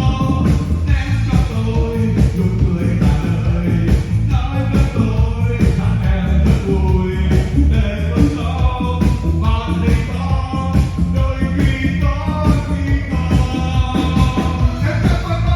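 A singer's voice over loud backing music with a strong steady beat.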